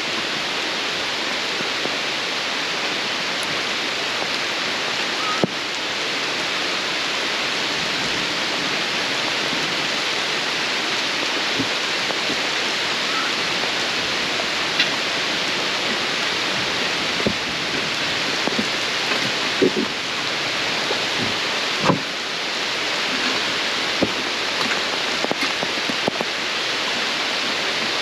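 Steady rain hiss with scattered louder drops tapping close by.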